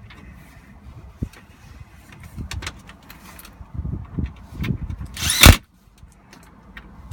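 The last two screws being fitted to secure the new shifter assembly in the console: scattered clicks and knocks of handling, then one brief, loud whir about five seconds in as a screw is driven home.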